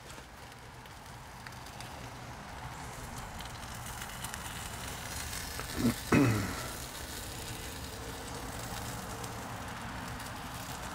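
Charcoal fire crackling and hissing in an open Kamado Joe Big Joe ceramic grill, growing a little louder over the first few seconds. About six seconds in, two brief sounds fall quickly in pitch, the loudest moment.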